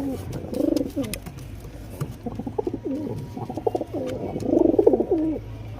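Domestic pigeons cooing: a string of low, rising-and-falling coos, the loudest near the end, with a few faint clicks.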